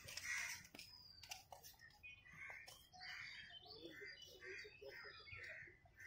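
Faint bird calls: short calls repeating about twice a second through the second half, with a few thin high chirps.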